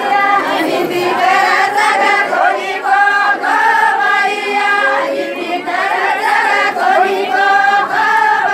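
A group of women singing a Banjara folk dance song together in unison, a high melody repeated in short phrases.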